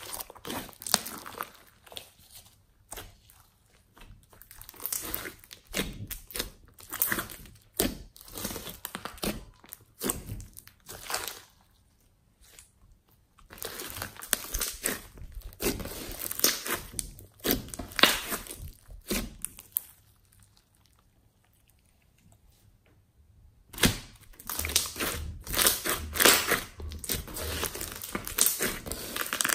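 Slime being squeezed, stretched and poked by hand, giving irregular crackling, popping and squelching sounds. There are two short lulls, the longer one about two-thirds of the way through.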